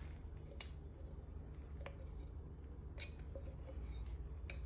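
A few light, sharp clinks of kitchenware being handled, four in all spread about a second apart, over a faint steady low hum.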